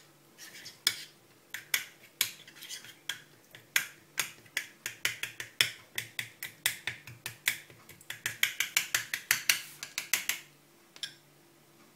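Metal teaspoon stirring a wet mashed-strawberry paste in a small bowl, clicking against the bowl in quick repeated strokes, several a second, that stop about two seconds before the end.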